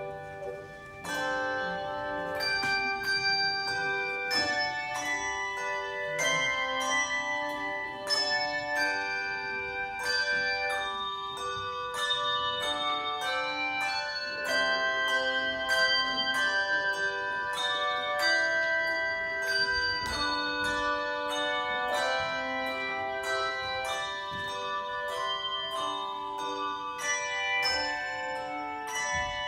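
Handbell choir playing a hymn arrangement: many struck bell notes overlapping and ringing on, with new notes coming several times a second across a wide range of pitches.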